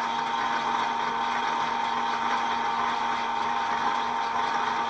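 South Bend 14 1/2" lathe running steadily while taking a cut in very hard material, a smooth, even whine and hum with no chatter: the headstock main bearing's play is taken up to about 0.05 mm.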